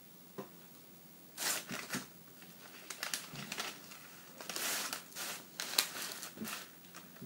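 Baking parchment rustling and crinkling as hands pull and smooth it under a sponge cake, in several short bursts, with one sharp click near the end.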